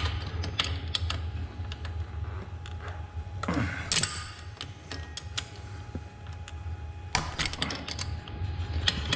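Irregular light clicks and taps of hand tools on the bike's bolts, growing denser near the end, over a steady low hum.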